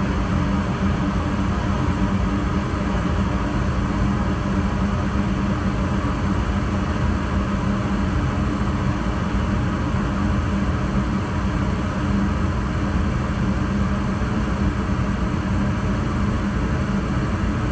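Gas furnace running in its warm-up stage, draft inducer fan and lit burners giving a steady hum and rush. The blower motor has not yet started, waiting out its delay on the new control board.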